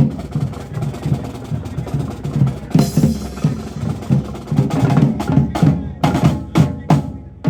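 Drum troupe playing a fast, steady beat of drum strikes, with sharper hits cutting through in the second half.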